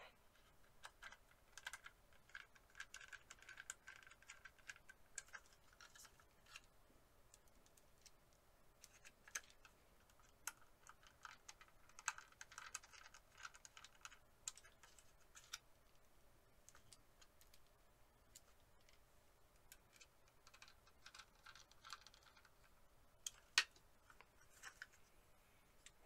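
Faint small clicks and scrapes of a screwdriver driving small screws into the metal mounting bracket of a 2.5-inch SSD, with one sharper click near the end.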